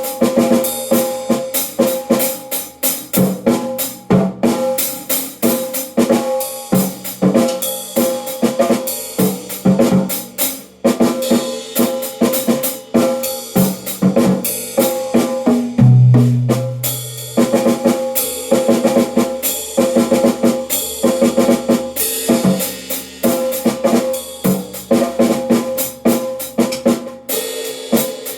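Drum kit played in a busy, continuous groove of snare, bass drum and rim hits, with a longer low boom about sixteen seconds in.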